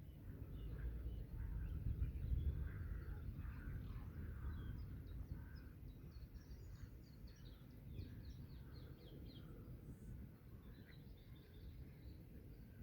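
Birds calling and chirping, with a quick run of high chirps a little past halfway, over a steady low background rumble.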